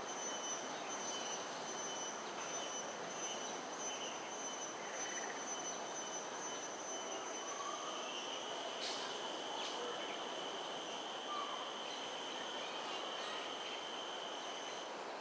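Steady outdoor background noise, a broad even rush, with a thin continuous high-pitched whine at several pitches over it; a few faint short chirps come about nine to ten seconds in.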